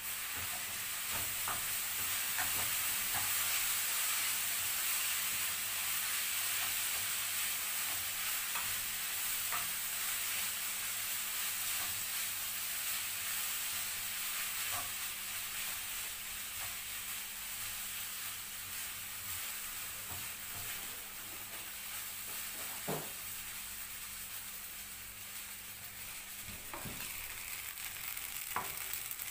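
Stir-fried noodles with bell pepper and onion sizzling in a granite-coated frying pan while a wooden spatula stirs and scrapes them, with a few short knocks of the spatula against the pan.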